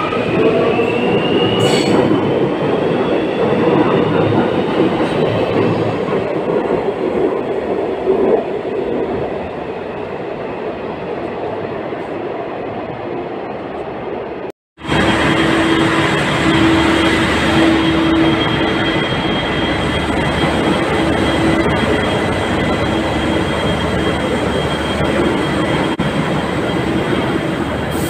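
Train running, with a steady rumble and a rising whine in the first couple of seconds. After a sudden break about halfway, another train sound follows: a steady rumble with a thin high whine and a lower hum.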